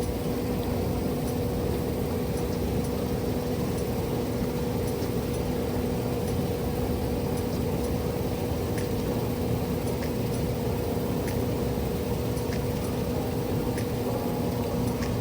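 Large farm machinery engine running steadily under load, a constant hum with an even mechanical noise beneath it and no change in pitch.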